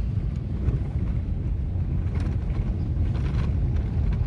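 Wind buffeting a phone's microphone outdoors: a steady low rumble with no pitched engine tone.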